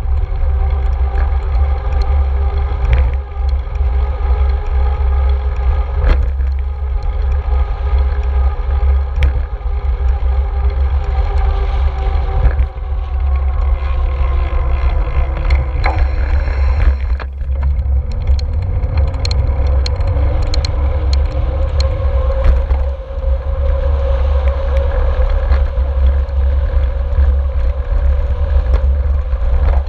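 Deep wind rumble on a handlebar-mounted action camera while a road bike is ridden, with a steady hum of several tones that slowly drift in pitch and occasional small clicks and knocks from the bike.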